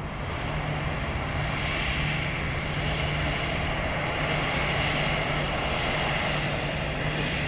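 Airbus A320-family airliner's jet engines running at low taxi power: a steady low hum with a higher whine on top, swelling slightly in the first second or so and then holding even.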